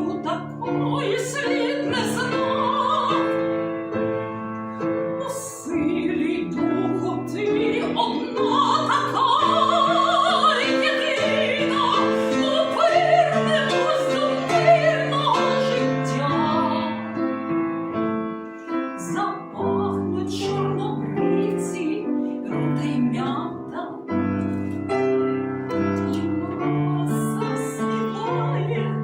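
A classical art song: a trained singer with marked vibrato, accompanied by piano. The voice is strongest from about six to seventeen seconds in, and the piano carries on mostly alone near the end.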